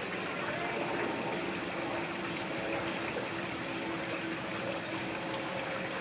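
Steady rushing of running water, with a faint even hum underneath.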